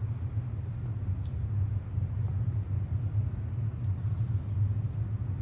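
Steady low outdoor rumble, with two faint short ticks about a second in and near the end.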